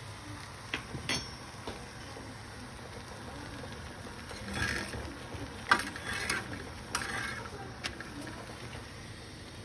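Scattered light clicks and knocks, the loudest a little before the six-second mark, with a brief scraping rustle just before it.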